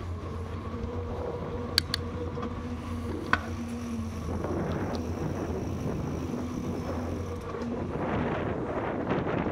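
Bicycle riding over paving: a steady rumble of wind on the microphone and tyre noise, with two sharp clicks about two and three and a half seconds in.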